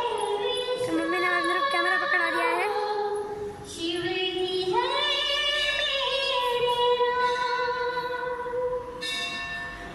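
Hindu devotional bhajan being sung, with long held notes that slide between pitches.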